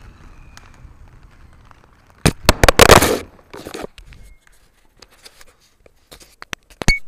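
Handling noise from an action camera being gripped and moved by hand: a loud burst of knocks and rubbing about two seconds in, then a string of scattered sharp clicks.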